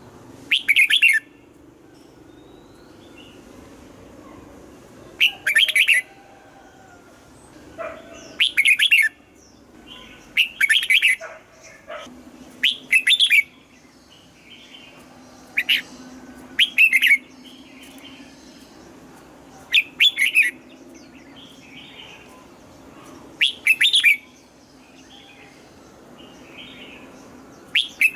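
Red-whiskered bulbul singing short, clear phrases, about ten in all, one every two to four seconds.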